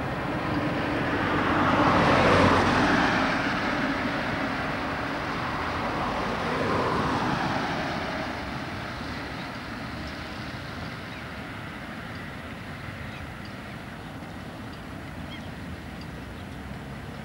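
Road traffic: two vehicles pass by, the first about two seconds in and the louder of the two, a second around seven seconds in, each with a falling swoosh of tyre and engine noise. Low, steady traffic noise follows.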